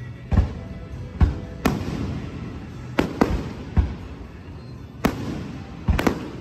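Aerial fireworks shells bursting: a string of sharp booms, about nine in six seconds, some coming in quick pairs.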